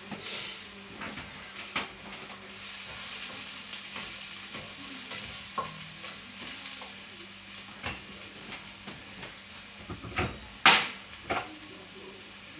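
A chopped vegetable mixture is frying and sizzling in a sauté pan while being stirred. There are a few sharp knocks of a utensil near the end.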